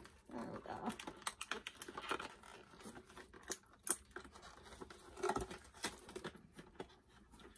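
Clear plastic doll packaging being handled, giving a string of irregular light clicks and crinkles.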